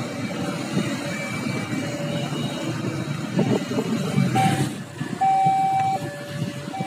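Busy road traffic of cars, vans and motorcycles going past, with two steady tones at slightly different pitches alternating every second or so in the background. The traffic noise drops away at about five seconds in, leaving the alternating tones clearer.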